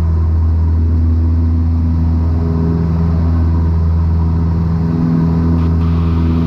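Cessna 172 Skyhawk's piston engine and propeller at full takeoff power, a steady low drone heard from the cockpit, with the engine gauges in the green.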